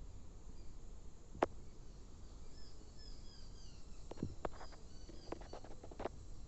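Faint, repeated high chirping of small birds over a low background hiss. A single sharp click comes about a second and a half in, and a quick run of clicks and taps follows near the end.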